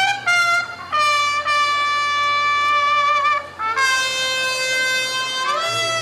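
Solo wind instrument playing long held notes, each a little lower than the last, with short breaks between them, then gliding up to a higher note near the end. A faint low hum runs underneath.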